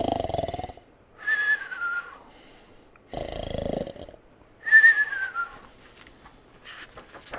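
A person imitating snoring, cartoon-style, twice: each time a rasping snore on the in-breath, then a whistle falling in pitch on the out-breath.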